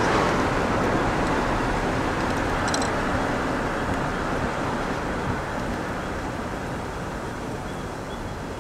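Steady road and engine noise of a moving car, heard from inside the cabin and slowly getting quieter.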